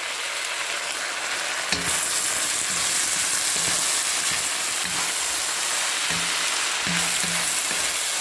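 Ground chicken, julienned carrots, celery and green peas sizzling in hot oil in a wok while a wooden spatula stirs them, scraping and knocking against the pan now and then. The sizzle is steady and grows a little brighter about two seconds in.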